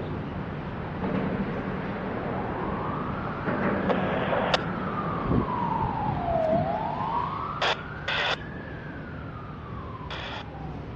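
Emergency vehicle siren in a slow wail, rising and falling twice, with a few short horn-like blasts over it and a steady low engine hum underneath.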